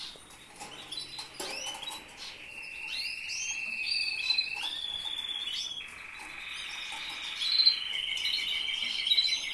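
Domestic canaries singing: long rolling trills held at one pitch, then stepping to another every second or two, with a few short chirps mixed in.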